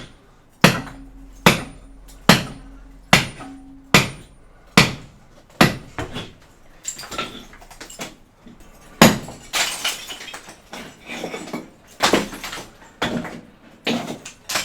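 A hammer striking a wall in seven evenly spaced blows, a little under a second apart, some with a short ring after the hit. It then turns into a quicker, messier run of knocks with crumbling and scraping as stuck material is broken off the wall.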